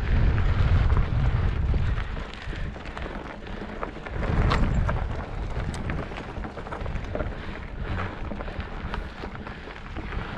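Wind buffeting the camera microphone while riding, a heavy low rumble that is strongest at the start and swells again about four seconds in, with scattered small clicks.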